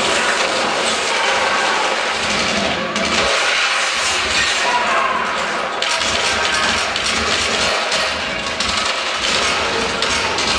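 The dance's recorded soundtrack played loud over the hall's loudspeakers: a dense, noisy mix with no clear tune or voice, with a few faint knocks.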